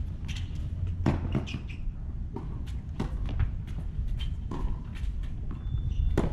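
Tennis ball bounces and racket strikes on an outdoor hard court, with players' footsteps: a string of irregular sharp knocks, the loudest just before the end, over a steady low rumble.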